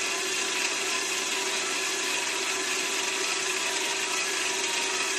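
Cordless drill running steadily as it turns a mini lathe's cross-slide feed screw, with the lathe running and its spinning fly cutter taking a light finishing cut.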